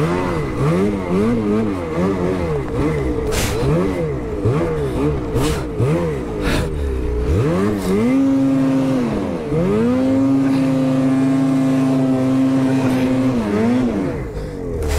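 Ski-Doo snowmobile's two-stroke engine revving up and down in quick throttle bursts, about one or two a second. About eight seconds in it climbs to high revs and holds there for several seconds, then drops off near the end.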